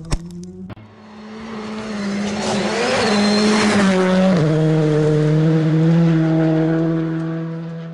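Race car engine held at steady high revs as it passes by: the sound swells, drops in pitch about four seconds in, then fades away.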